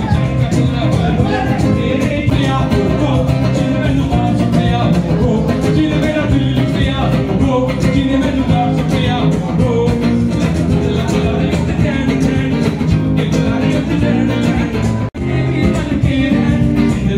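Live band music at full volume through a PA: a male singer on a microphone over guitar and tabla. The sound drops out for an instant about fifteen seconds in.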